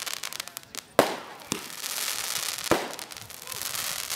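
Aerial fireworks going off: two loud shell bursts, about a second in and near three seconds, with a smaller bang between them and a dense crackling of stars throughout.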